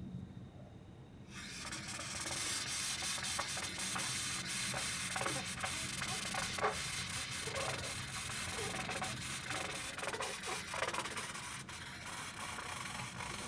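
Trumpet played with extended technique as a noise instrument: a steady hiss that starts suddenly about a second in, with many short squeaking slides in pitch on top of it.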